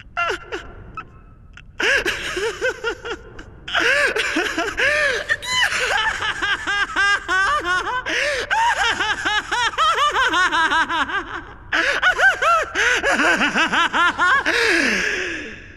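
Maniacal male laughter, a young man's 'ha ha ha' cackling. It starts in scattered bursts and builds into a dense run of many laughs heard over one another, with a short lull and then a louder burst before it trails off.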